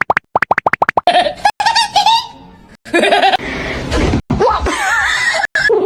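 Laughter: a quick run of short staccato pulses about ten a second, then wavering, gliding laughs mixed with breathy noise.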